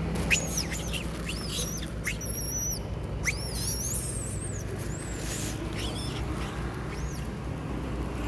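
Long-tailed macaques squealing over food: a run of short, high-pitched arching squeals, one after another, thinning out near the end. A plastic bag rustles now and then.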